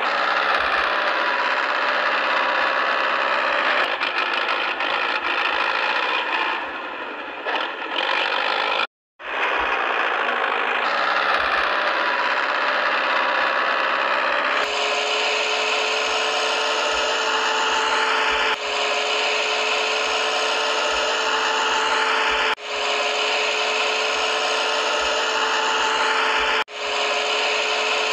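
Remote-control toy tractor's small electric drive motor and plastic gearbox whining steadily while towing a second toy tractor and a loaded gravel trolley through sand. It drops out briefly about nine seconds in, and its pitch shifts abruptly several times.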